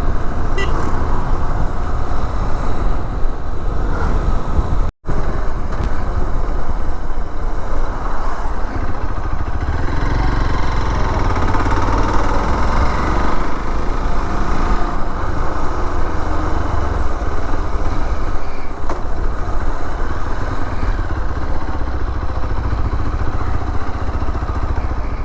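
Hero Xpulse motorcycle being ridden at a steady cruise: its single-cylinder engine running under a steady rush of wind on the microphone. The sound drops out for an instant about five seconds in.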